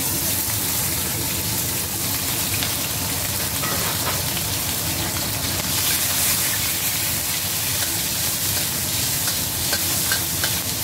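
Chopped scallions sizzling in hot oil in a steel wok, stir-fried with a metal ladle that scrapes the pan, with a few light taps of the ladle on the wok near the end.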